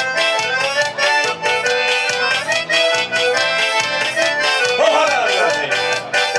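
Live forró music, instrumental: an accordion plays the melody over a fast, steady percussion beat.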